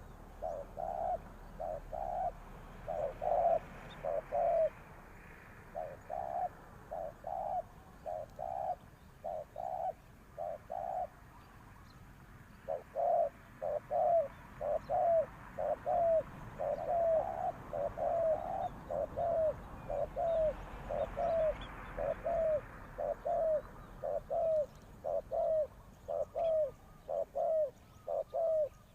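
Spotted dove cooing: short, falling coo notes in repeated phrases, with a brief pause near the middle.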